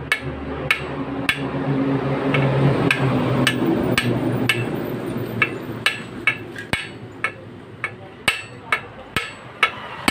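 Sharp metal clicks and taps, about two a second, from a socket wrench on a universal joint working the centre nut of a gear in a CD diesel engine's gear housing. A low hum runs under the clicks in the first half and fades out.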